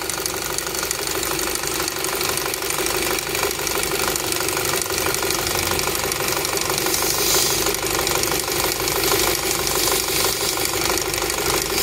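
Audi A3 engine idling with a steady hiss of air being sucked in through a leaking brake booster hose: a vacuum leak of the kind that sets an intake air leak code.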